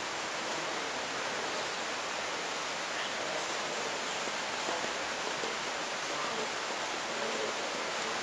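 Steady, even hiss of room noise, without speech.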